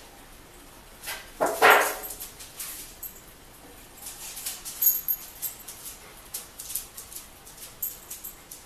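Milwaukee bandsaw's lower wheel and motor being worked by hand, giving light metal clicks and knocks; the motor is hanging up and will not turn freely. A short, loud double sound comes about a second and a half in.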